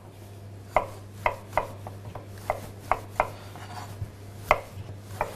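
Chef's knife slicing raw peeled potatoes, the blade striking the cutting board in about nine irregular strokes. A low steady hum runs underneath.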